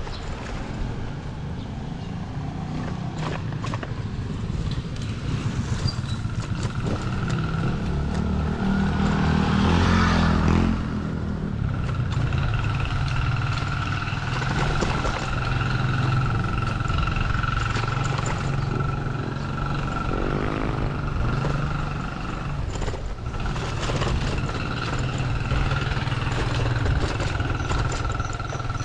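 Motorcycle engine running steadily while riding, with a louder vehicle sound swelling up and passing about ten seconds in.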